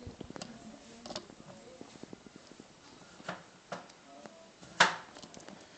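Knife clicking and tapping against a plastic cutting board while a duck leg is cut off the bone, a few scattered clicks with a sharper one near the end.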